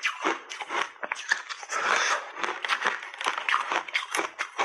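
Frost-coated berry block ice crunching and crackling as it is broken up, a dense run of quick, irregular crackles.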